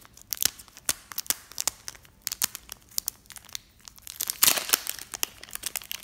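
Clear plastic wrapping being picked at and peeled off a cube by fingers: sharp crinkling and crackling, denser and louder from about four seconds in.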